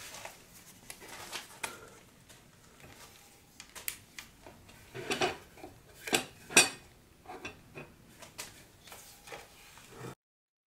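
Scattered clinks and knocks of hard objects being handled and set down, the loudest knocks a little after five seconds and around six and a half seconds in. The sound cuts off suddenly near the end.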